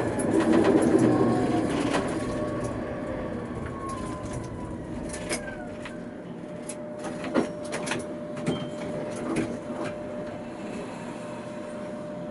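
Tatra K2P tram's electric traction equipment whining down in pitch as the tram brakes to a stop, the overall noise dying away. It then stands with a steady tone and a few scattered clicks and knocks.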